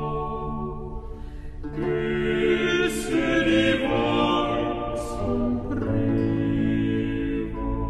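Music of voices singing slow, held notes that change every second or two, with a few sung consonants heard as brief hisses.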